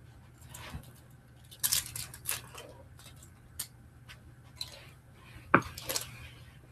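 Rustling and scattered sharp clicks and knocks as small plastic toy monster trucks are handled and someone shifts about on a carpet, with the loudest knock about five and a half seconds in.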